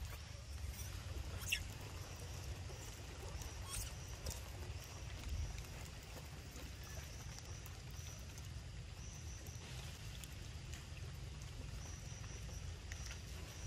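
Outdoor ambience: a steady low rumble, a faint high-pitched buzz that comes and goes, and a few faint clicks.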